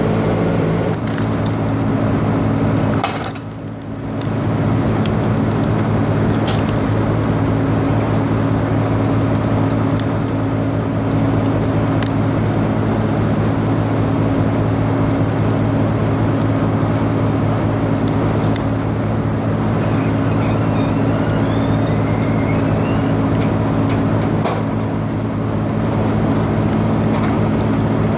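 Parked delivery box truck running steadily, a constant low droning hum. A short run of high chirps comes through about twenty seconds in.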